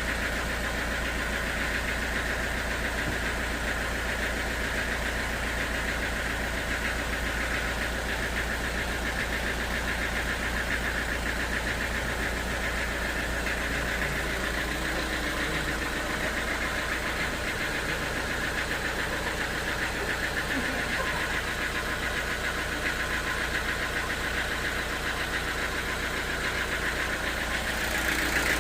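Sawmill machinery running steadily at a constant engine speed, getting louder near the end.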